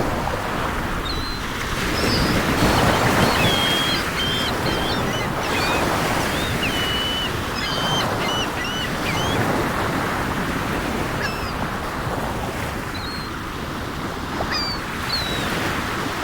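Sea waves surging and washing in a steady wash of surf, with gulls giving many short, high calls over it, thickest through the middle.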